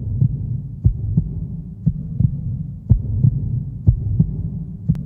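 Heartbeat sound in a song intro: paired low thumps, one pair about every second, over a steady low hum.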